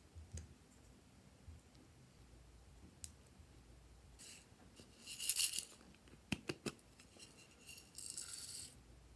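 Small hard gold beads pouring out of a little plastic cup and rattling onto slime near the end. Before that comes a brief loud hissing burst about five seconds in and a few sharp clicks of hands handling hard plastic containers.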